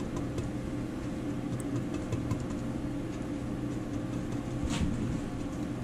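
Steady low background hum, with faint scattered ticks and a brief soft rustle about three-quarters of the way through.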